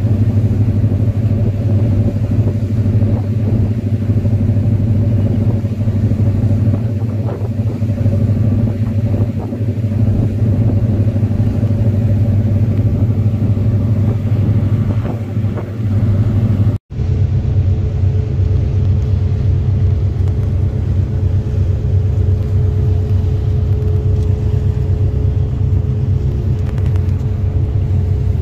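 Tour boat's engine running steadily under way, a loud low drone. It breaks off for an instant about seventeen seconds in and carries on with a slightly different tone.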